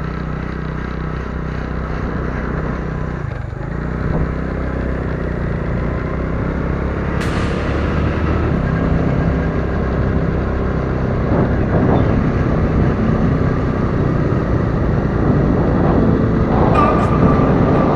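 Steady rush of wind and a running vehicle picked up by a camera mounted on the vehicle while riding, growing gradually louder as the ride goes on.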